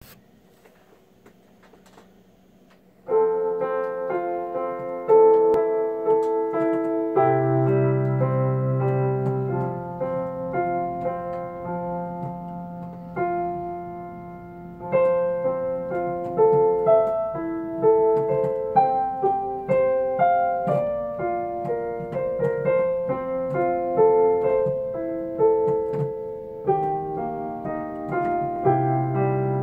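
Solo piano starting about three seconds in after a quiet lead-in, chords and melody played over held bass notes.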